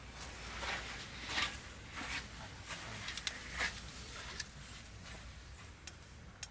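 Scattered light clicks, knocks and rustles of things being handled, over a low steady hum, with the loudest strokes about one and a half seconds and three and a half seconds in.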